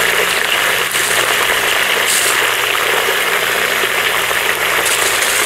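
Meat, onion and stones frying in oil in a large pan over a wood fire: a steady, dense sizzle, with a faint low hum underneath.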